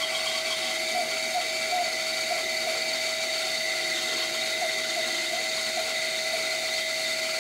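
Benchtop bandsaw running steadily with a constant tone, its blade cutting an oval drawer out of a thick laminated block of walnut and plywood.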